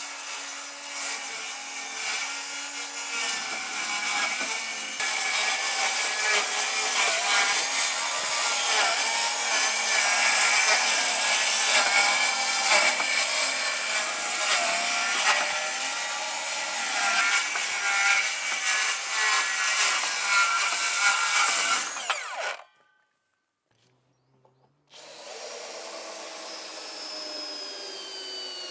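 Cordless circular saw running and cutting through a wooden plank, its motor pitch wavering as the blade works through the wood, then stopping sharply. After a short silence near the end, a quieter machine whir with a falling pitch follows.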